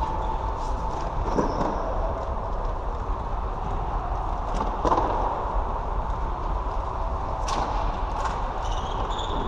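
Floorball play: a few sharp knocks of sticks and the plastic ball, spread out, over a steady low rumble of game noise.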